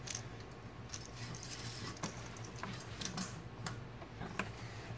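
Hands working among metal lines and parts around a truck's transmission dipstick tube: scattered light clicks, taps and small rattles, a few sharper ones, over a steady low hum.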